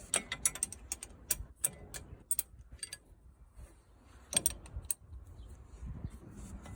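Irregular metallic clicks and clinks of hand tools and small metal parts being handled, in quick clusters with a short lull in the middle.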